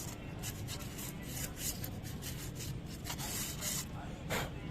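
Emery paper scrubbed in quick back-and-forth strokes against the braking surface of a motorcycle rear brake drum, about two or three scrapes a second with one longer stroke past three seconds in. The surface is being sanded clean of dirt to stop the brake squeaking.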